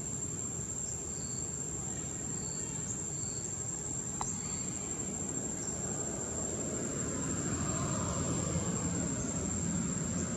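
Steady high-pitched drone of insects, with a few faint short chirps in the first half. A low rumble grows louder over the last few seconds.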